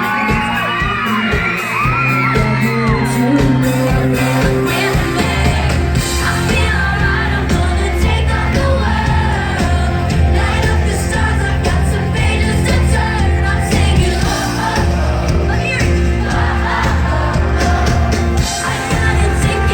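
Live pop band playing over a concert PA, with a heavy bass line coming in about five seconds in. A crowd of fans screams and cheers over it, the high screams thickest in the first few seconds.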